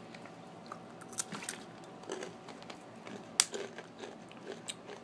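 Crunching and chewing of a Takis rolled tortilla chip, with irregular crisp crunches. The loudest is a sharp crunch about three and a half seconds in.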